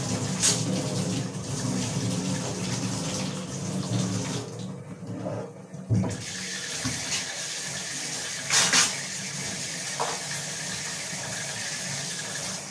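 Kitchen tap running steadily with a rushing sound, with a few sharp knocks about half a second in, around the middle, and twice near the end.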